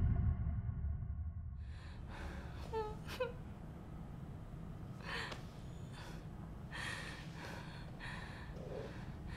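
A woman gasping and breathing shakily, with a few short whimpering sobs, over a low steady hum. The music dies away in the first second or so.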